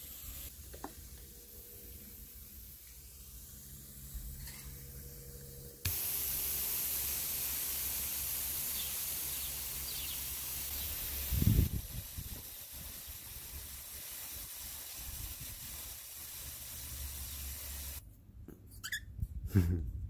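Water spraying in a steady hiss to mist a cockatiel as it bathes. The spray starts suddenly about six seconds in, turns softer about twelve seconds in, and a single low bump comes at that moment.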